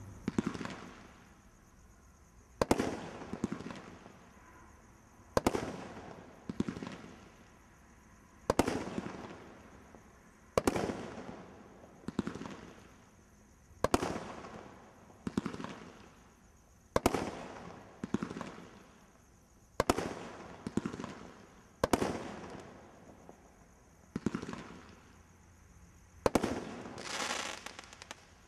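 Brothers Pyrotechnics 'Tivoli' 16-shot display combination Roman candle firing, one shot after another about every one to three seconds. Each shot is a sharp report that trails off over a second or so, with a longer hiss near the end.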